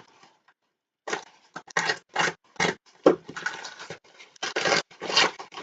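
Parcel packaging being torn open and handled: a quick run of short rustling, crinkling scrapes that starts about a second in.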